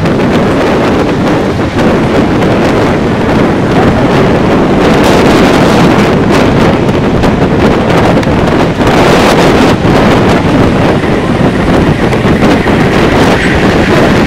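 Strong wind buffeting the microphone: a loud, continuous low rumble that swells with the gusts, with crackles as they hit.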